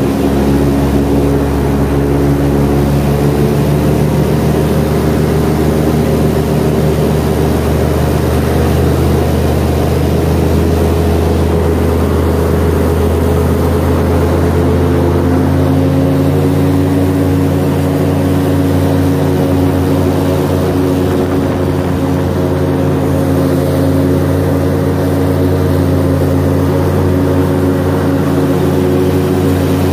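Airboat's engine and aircraft-style propeller running loud and steady while the boat travels across the marsh, the engine note shifting slightly higher about halfway through.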